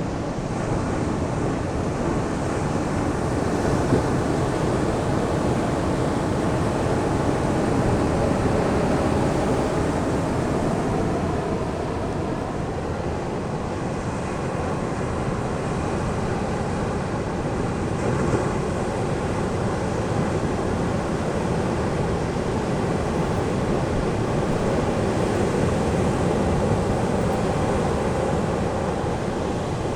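Ocean surf breaking and washing onto a sandy beach: a continuous rush of waves that swells and eases slowly, with a low rumble of wind on the microphone.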